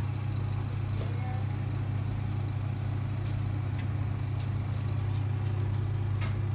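Vacuum pump of an LCD laminating machine running with a steady low hum, drawing down the vacuum chamber, with a few faint clicks.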